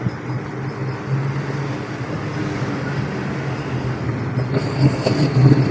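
Steady, engine-like hum of a motor vehicle running, getting louder near the end.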